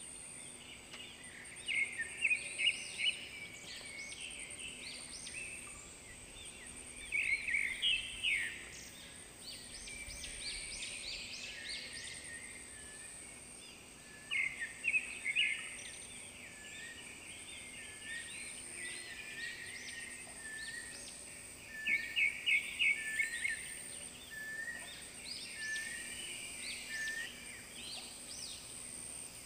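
Rainforest birds calling in about five bouts of rapid chirps, over a steady high-pitched whine.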